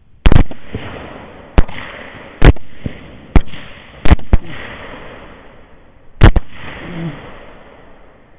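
A rapid string of rifle shots, about seven in six seconds, each followed by a rolling echo.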